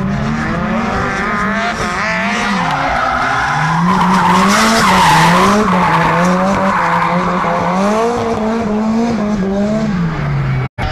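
Nissan S13 drift car sliding through the corners: its engine revs up and down again and again as the throttle is worked, and its rear tyres squeal and skid, loudest about four to six seconds in. The sound cuts out for a split second near the end.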